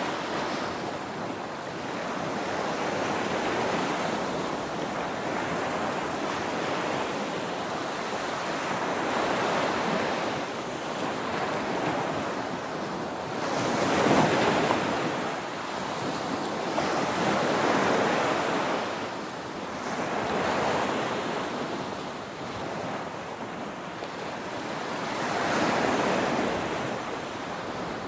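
Small waves breaking and washing up a sandy beach: a rush of surf that swells and fades every few seconds, the biggest wave about halfway through.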